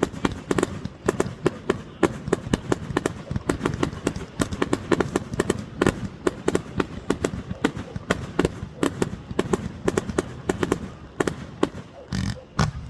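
Fireworks going off: a rapid, uneven string of sharp pops and bangs, several a second, with a short rushing hiss near the end.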